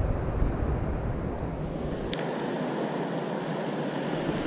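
Steady rush of churning water below a dam mixed with wind buffeting the microphone, with a single sharp click about two seconds in.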